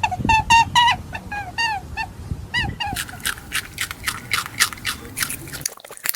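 A quick run of short squeaky calls, each rising then falling, about four or five a second, then from about three seconds in a fast, crisp crunching of a rabbit chewing.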